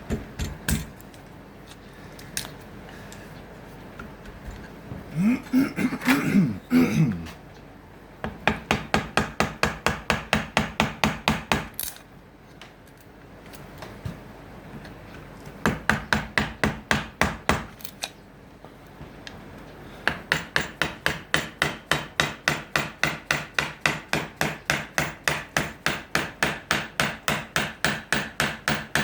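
A hand tool is worked back and forth on acacia wood in quick, even strokes, about five or six a second. It comes in runs with short pauses between, and the longest run starts about 20 seconds in. Around six seconds in there is a louder, uneven scrape with a few squeaky tones.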